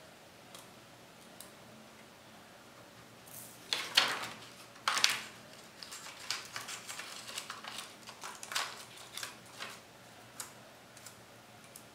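Handling of an Asus X441U laptop's plastic top cover and ribbon cables: a couple of brief scraping rustles about four and five seconds in, then a run of light plastic clicks and taps as the keyboard and touchpad cables are plugged in and the cover is set back on loosely.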